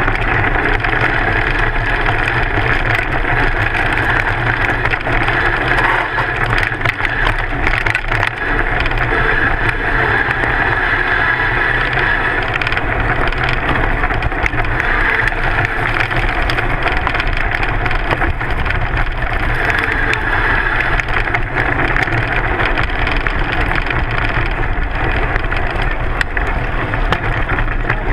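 Mountain bike riding fast down a rough dirt trail, picked up by a camera on the front fork: a steady rumble and rattle of the tyre and bike over the ground, with a constant clatter of small knocks.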